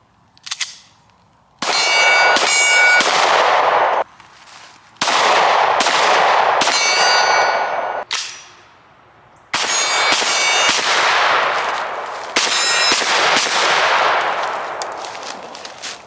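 Rapid gunfire in four long strings, with metal ringing as hits land on steel targets.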